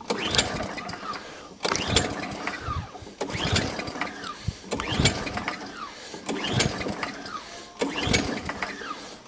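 Recoil starter on an Atco Balmoral 20S cylinder mower's Tecumseh engine pulled six times in steady succession, about one pull every second and a half, the engine turning over without firing. It is on choke with plenty of throttle and still won't start, which the owner suspects is a fuel delivery issue.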